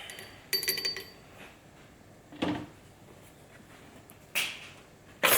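Handling noises from the workbench: a ringing metal clink about half a second in, a dull knock a couple of seconds later, then a brushing sound and a sharp clatter near the end, as tools and fork parts are picked up and set down.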